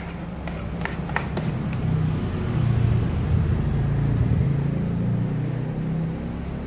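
Three-tap Wirastar WIR-818T soft-serve ice cream machine running with a low motor hum that swells louder in the middle. A few clicks in the first second or so come from a plastic spatula knocking against the stainless steel mix hopper.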